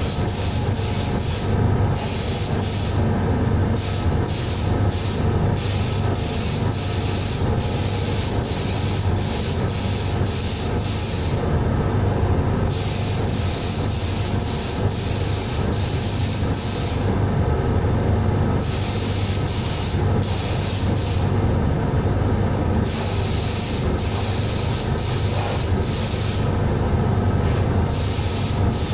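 Compressed-air blasting gun hissing in long bursts, cut off briefly several times as the trigger is released, over the steady hum of a running air compressor.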